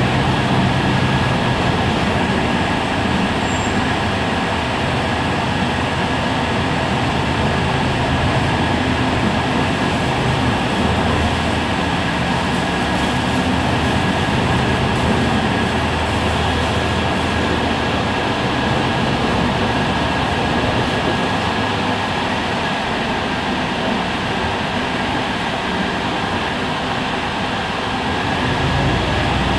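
Heuliez GX 137 city bus running: a steady mechanical drone with a steady high whine over it, and a deeper low rumble swelling near the end.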